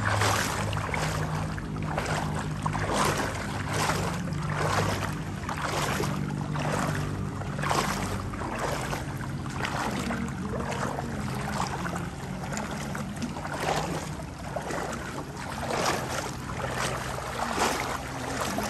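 Water splashing in a regular rhythm, roughly one splash every second or less, over a steady low engine hum.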